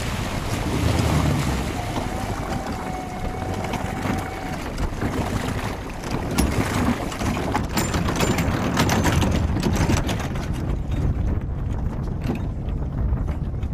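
MasterCraft ski boat's engine running close by, with wind buffeting the microphone. From about six seconds in come sharp knocks and thumps as a person jumps from the boat onto a floating dock and runs along it.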